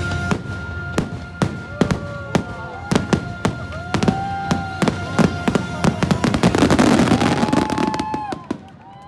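Fireworks finale: aerial shells bursting in rapid, irregular bangs, building to a dense crackling about seven seconds in and falling away near the end, with the show's music playing underneath.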